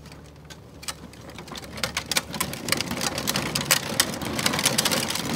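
Hard plastic wheels of a child's pedal tractor rolling on rough asphalt, a dense crackling rattle that grows louder from about two seconds in as it picks up speed down a slight slope.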